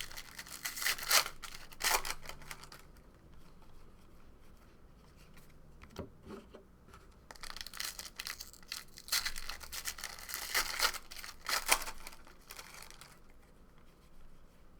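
Trading card pack wrappers being torn open and crinkled by hand, in two spells of crackly rustling: the first ends about two seconds in, the second runs from about seven to thirteen seconds.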